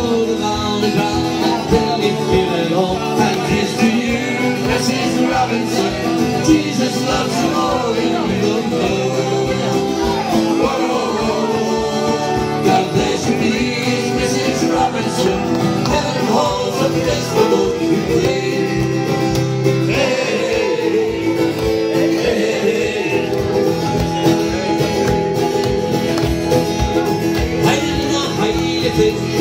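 Background music in a bluegrass or country style, with plucked guitar and a steady beat.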